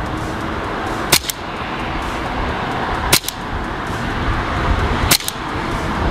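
KJ Works CZ SP-01 Shadow gas blowback airsoft pistol, running on a CO2 magazine, fired three times through a chronograph about two seconds apart. Each shot is a sharp double crack.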